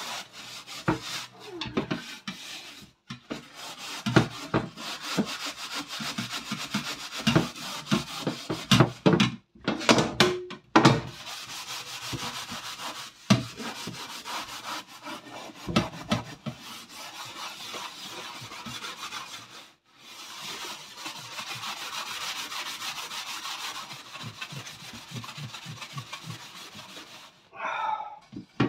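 Steel wool pad scrubbing a greasy black metal oven tray: scratchy back-and-forth rasping that stops briefly a few times.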